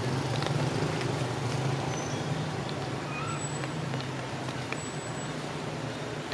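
Steady low outdoor rumble, with a few faint, short high chirps scattered through it.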